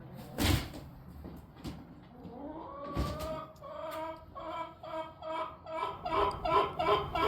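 A hen clucking in a repeated series of calls that grow louder and come closer together, the kind of fuss a hen makes around laying an egg. A sharp knock is heard about half a second in.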